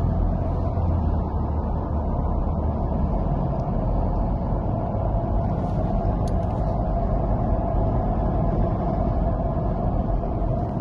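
Car driving fast and picking up speed, with steady engine and road noise.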